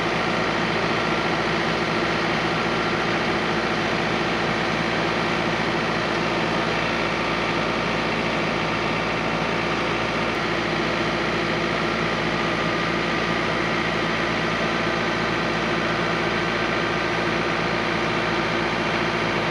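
John Deere 4066R compact tractor's diesel engine running steadily while its front loader hydraulics lower the raised work basket.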